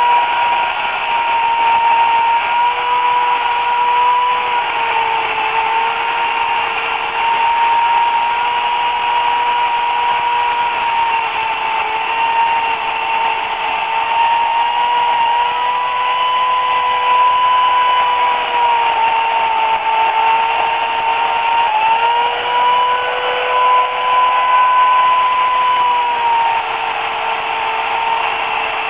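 Remington Limb N Trim RM1415A electric chainsaw's 8-amp motor running flat out with a steady high whine while cutting into a tree trunk. The pitch sags a little at times under the load of the cut, and about three-quarters of the way through it dips briefly and picks back up.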